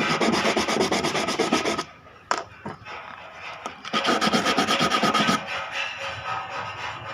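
A carbon brush for an angle grinder being rubbed quickly back and forth on sandpaper to shorten it to fit. Two runs of fast scraping strokes, the first about two seconds long, the second starting about four seconds in, with a short single scrape between them.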